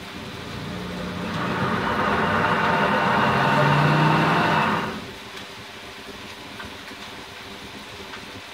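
Pampered Chef Deluxe Cooking Blender's motor running a short blending burst on hot applesauce during its heated cooking program, building up over about two seconds and cutting off sharply about five seconds in.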